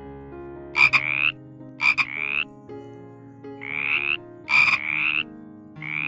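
A frog croaking repeatedly: about six short rasping croaks, each about half a second long, some coming in quick pairs.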